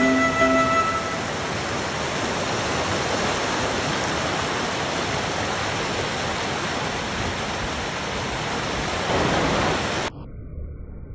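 Mountain river rapids: a steady rush of fast water tumbling over boulders and gravel, cut off suddenly near the end.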